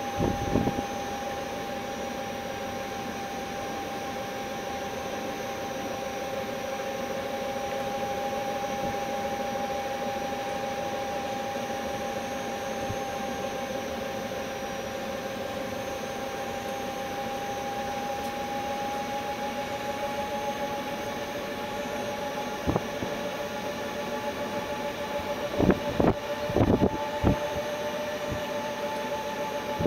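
Urban electric tourist train's drive motor running with a steady two-note whine over road and rolling noise, the pitch rising slightly partway through. A few sharp knocks and rattles come near the end, louder than the whine.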